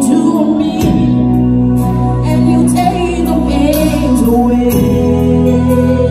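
A woman singing a gospel song live into a microphone, backed by keyboard and drums playing held chords and a steady beat.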